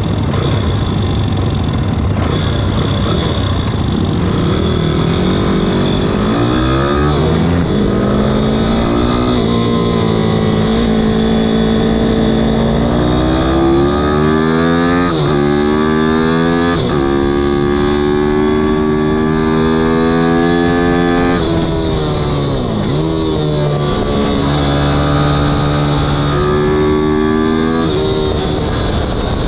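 Ohvale minibike engine heard from on board while lapping a track, its revs climbing and then dropping sharply at each upshift, about five times, with falling sweeps where it slows for corners.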